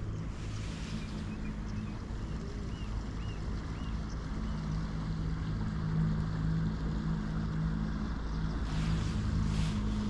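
Steady low drone of a boat engine running on the lake, growing a little louder after the middle.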